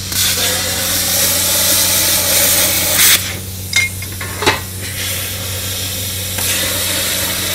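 Tenya CUT60C air plasma cutter cutting metal: the arc hisses steadily over a low hum. The hiss breaks off about three and a half seconds in, with a couple of sharp ticks, and starts again about a second later.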